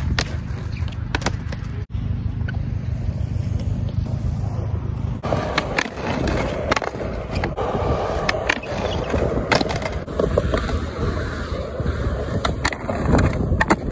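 Skateboard wheels rolling on concrete, with repeated sharp clacks of the deck popping and landing, and the nose scraping along a concrete ledge in noseslides. About five seconds in, the low rolling rumble turns rougher and scrapier.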